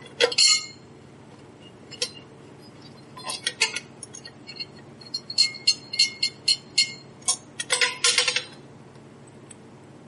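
A wedge screwdriver and small machine screw clicking and clinking against the metal connector and case of a pressure recorder while the screw is started by hand. The sharp metallic clicks come irregularly, thickest from about five to eight seconds in, then stop.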